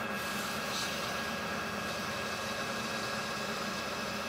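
Metal lathe running at a steady speed, a steady high whine over a low hum, while a strip of abrasive cloth is held against the freshly cut threads on a spinning stainless rifle barrel to polish them.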